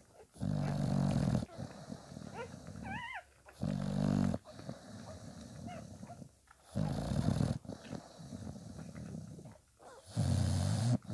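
English bulldog snoring in her sleep: four loud snores about three seconds apart, each lasting about a second. A nursing puppy gives a short, wavering squeak about three seconds in.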